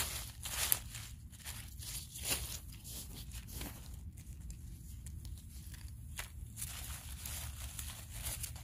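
Dry fallen leaves rustling and crackling as a gloved hand brushes them aside and digs among them to pick mushrooms. The crackles come thick for the first few seconds, then thin out to a few scattered ones.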